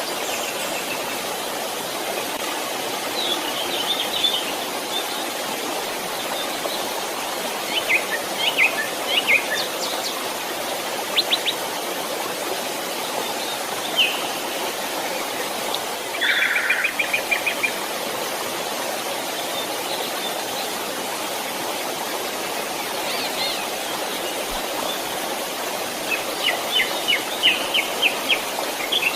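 Steady rush of a flowing creek, with small birds chirping over it in short scattered calls, a rapid trill about halfway through and a run of quick chirps near the end.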